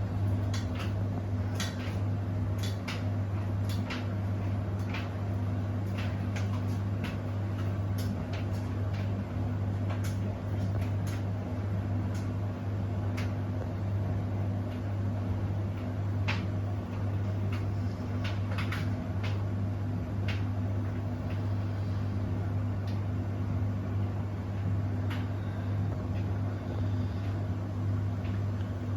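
Beko WTK104121W washing machine running: a steady low hum with irregular clicks and knocks over it.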